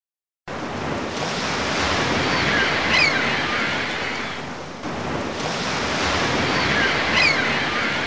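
Ocean surf washing onto a shore: a steady rushing of breaking waves that starts abruptly about half a second in, then swells and eases twice. At each swell a brief high sound glides down in pitch over the surf.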